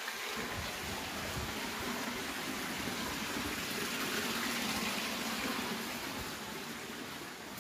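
Water running or gushing, swelling to its loudest about halfway through and then fading.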